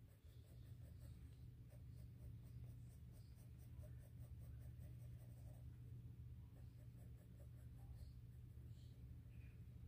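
Faint scratching of a Faber-Castell Goldfaber colored pencil on paper in short repeated strokes, over a low steady hum.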